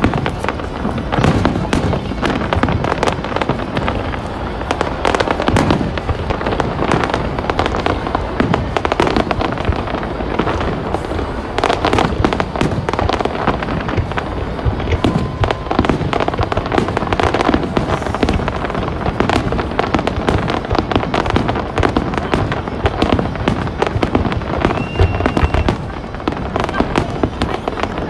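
Aerial fireworks bursting in a continuous barrage, with dense, rapid bangs and crackling and no break.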